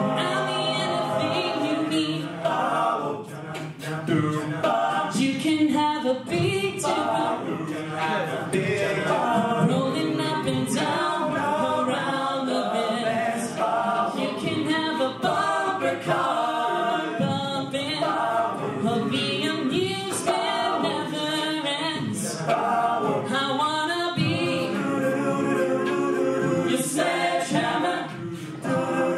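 All-male a cappella group singing into microphones: a lead voice over layered backing harmonies, with vocal percussion adding sharp clicks and hits throughout.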